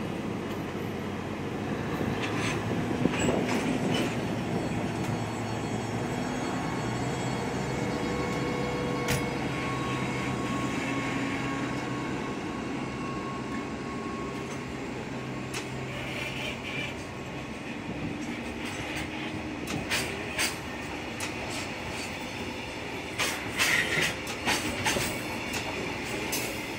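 A DD200 diesel-electric locomotive's engine runs steadily as it hauls a container freight train away, its note rising and falling slightly as it gathers speed. The passing container wagons add clacking wheels over rail joints and short wheel squeals, loudest near the end.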